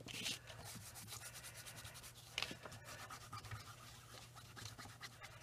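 A paper towel rubbed quickly back and forth over a plastic craft mat, wiping up wet paint, in a rapid run of scratchy strokes. A sharper scrape comes near the start and another about two and a half seconds in.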